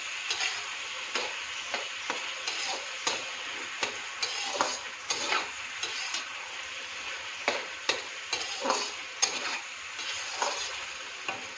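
Chicken, capsicum and sweet corn sizzling in a large wok while a spatula stirs and tosses them. Irregular scrapes and knocks of the spatula against the pan come through over the steady hiss of the frying.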